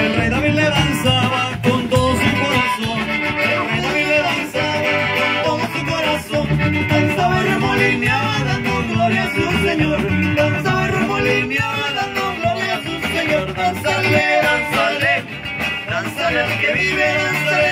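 Live band playing an instrumental passage of an upbeat Latin song on button accordion, electric bass and guitar over a steady beat.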